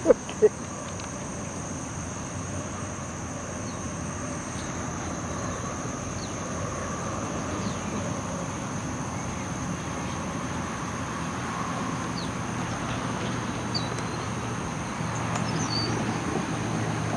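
Steady outdoor road-traffic noise, a low rumble that swells a little near the end, with a few faint bird chirps.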